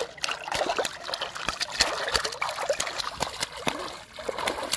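A big hooked fish thrashing at the water's surface: irregular slaps and splashes with spray pattering back onto the water.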